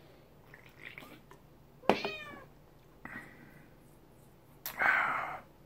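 A domestic cat meowing: one clear meow with a falling pitch about two seconds in, then a fainter call. A short breathy noise follows near the end.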